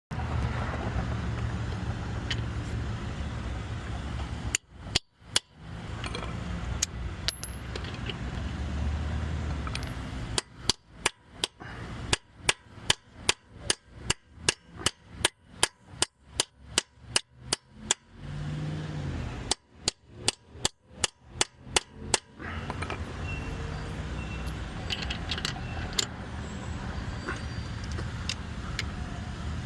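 Sharp metal-on-metal hammer blows, about two a second, in three runs: a short one early, a long one through the middle and a shorter one after a brief pause. A steady low rumble runs under them and carries on alone once they stop.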